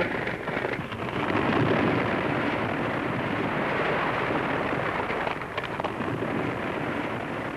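Brick tower collapsing during demolition: a continuous rumbling crash of falling masonry that starts suddenly, builds over the first couple of seconds, then rumbles on steadily, easing a little near the end.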